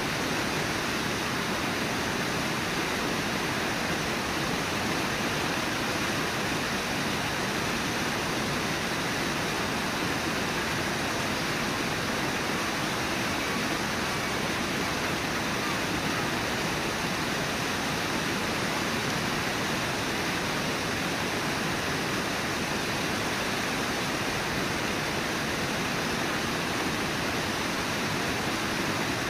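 Rushing river water at a waterfall, a steady even noise that does not change.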